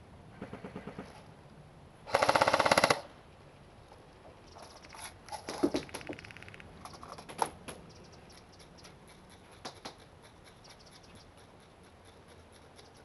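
Airsoft rifle firing a short full-auto burst of under a second, about two seconds in. Near the start there is a fainter rapid string of shots, and scattered sharp clicks and pops follow.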